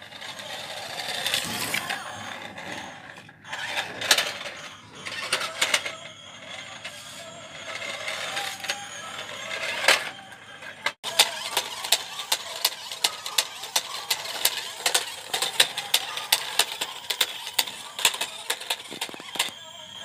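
Small electric gear motors of a plastic RC stunt car whirring as it drives and spins on concrete. About halfway through there is a sharp break, then a rapid string of clicks and clatter.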